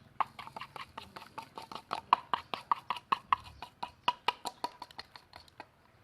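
Rapid light tapping of a kitchen utensil against a container, about six knocks a second, stopping shortly before the end.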